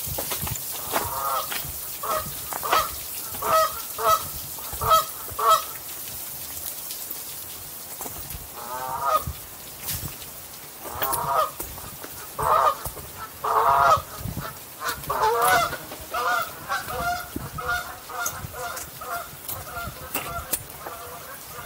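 Geese honking: bursts of short calls, growing into a quicker, continuous run of honks over the last several seconds.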